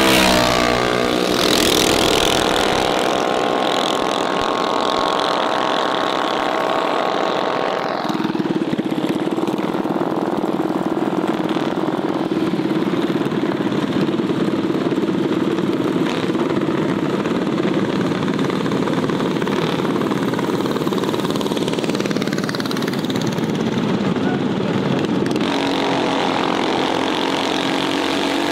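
Mini bike engines running at high revs. One passes close by at the start, its pitch dropping, then a steady engine drone holds for most of the rest.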